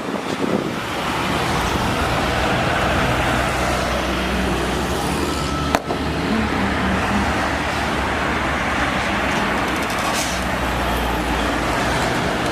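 Nissan Diesel UD truck's diesel engine running under way, a steady low drone with road noise, and one sharp click about six seconds in.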